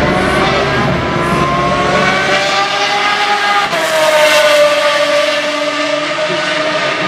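Pagani supercar's V12 engine on a demonstration run past the spectators. The engine note climbs for the first few seconds, peaks and drops in pitch about four seconds in as the car goes by, then holds a lower note as it pulls away.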